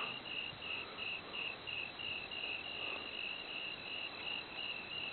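Crickets chirping steadily, an even high-pitched chirp repeating about three times a second, with one sharp click right at the start.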